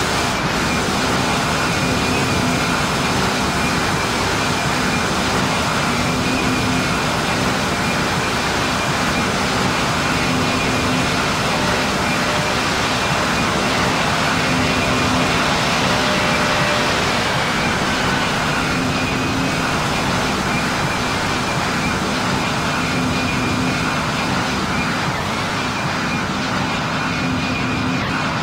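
Jet aircraft noise heard from on board: steady engine and airflow noise with a constant low hum and a higher whine.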